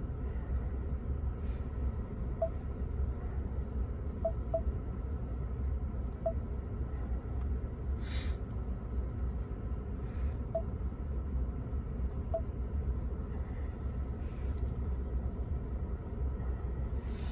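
Low steady rumble inside a pickup truck's cab, with a few faint short beeps and a sharp click about eight seconds in.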